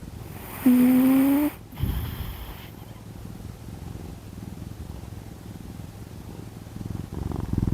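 A sleeping cat snoring in a low, rhythmic rumble. About a second in comes a short, loud cat call that rises slightly in pitch.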